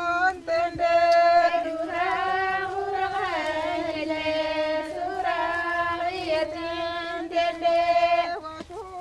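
A woman's voice singing long, held notes that waver and bend, with short breaks between phrases, stopping just before the end.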